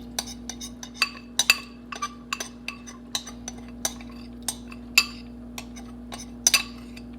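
Stirring utensil clinking against a pot of stew as a cornstarch slurry is stirred in to thicken it: sharp, irregular clinks, about three a second, over a steady low hum.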